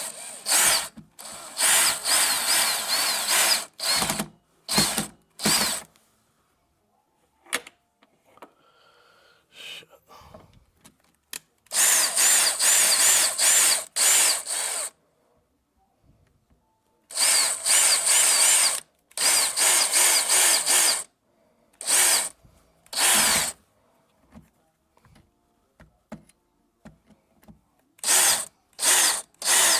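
Power drill driving screws into a door in a series of trigger bursts with quiet gaps between. Most bursts last about a second; a few run two to three seconds, the motor's pitch shifting as the screw bites.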